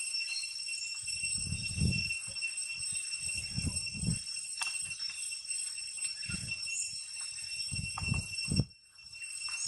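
A steady, high-pitched insect drone with an even ringing buzz. Several dull low rumbles and thumps come and go over it, and everything cuts out briefly near the end.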